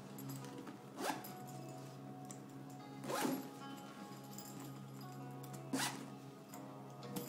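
Zipper and stiff truck-tarpaulin rustle from a Freitag bag being opened and handled, in about four short sharp bursts, over steady background music.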